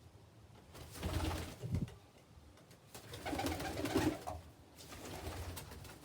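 Domestic pigeons cooing: two louder bouts about a second in and about three seconds in, then a softer one near the end.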